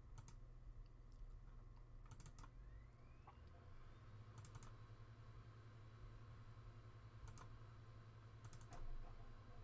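Computer mouse button clicks, mostly quick double-clicks, in a few sets a couple of seconds apart, over a faint steady low hum.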